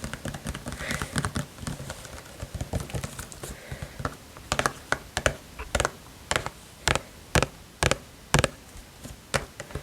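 Fingers tapping and clicking on a plastic hand wash bottle. The taps are quick and soft at first, then become louder, separate taps about one or two a second.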